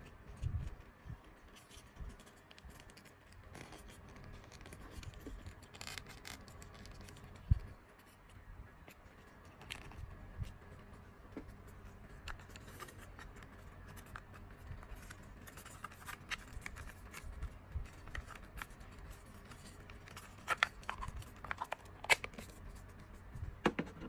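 Handling noise: scattered clicks, taps and light scraping as small objects are handled, with a sharp knock about seven seconds in and a run of clicks near the end.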